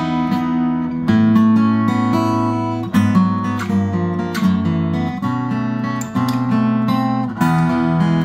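Fingerpicked chords on a 1970s Tokai-made Cat's Eyes CE-400 dreadnought acoustic guitar with a solid top, Indian rosewood back and sides, and 11-gauge strings. The notes ring on, and the chord changes about every two seconds.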